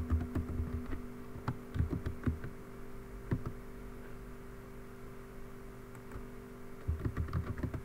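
Computer keyboard keystrokes: a few scattered taps in the first few seconds, then a quick run of typing near the end, over a low steady hum.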